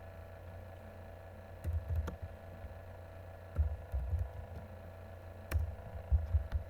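A few scattered computer keyboard clicks and soft thumps over a steady low electrical hum.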